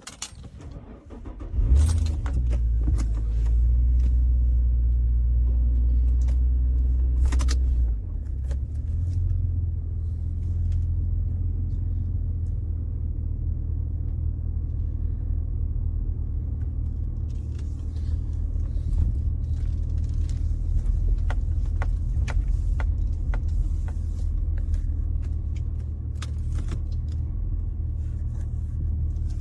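A few clicks, then the 2007 Pontiac Torrent's 3.4-litre V6 starts about two seconds in and runs steadily, heard from inside the car. Its level eases slightly at about eight seconds.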